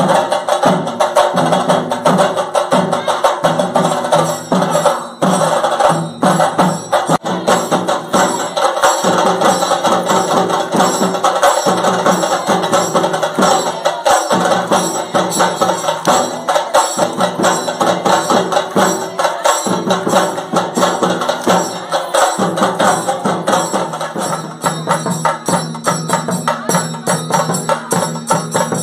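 Traditional Tamil festival music: a fast, steady beat of hand drums and jingling percussion under a wavering melody.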